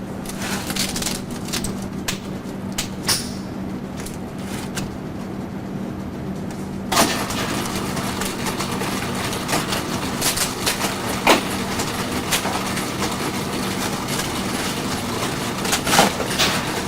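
Irregular gunshots at an indoor shooting range, sharp cracks spaced a second or several apart, the loudest about eleven seconds in, over a steady low hum.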